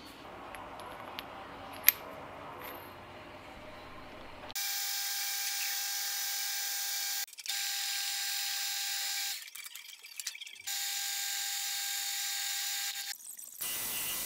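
Metal lathe running with a steady high-pitched whine while drilling and turning a brass bearing blank, cutting in abruptly about four seconds in and dropping out briefly a few times. Before that, a few light clicks, one of them sharp.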